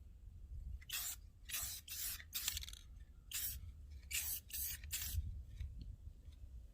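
Aerosol can of clear coat sprayed in about eight short hissing bursts, each a fraction of a second. The can is spraying extra clear coat onto a sanded headlight lens, underneath runs from a coat put on too heavy.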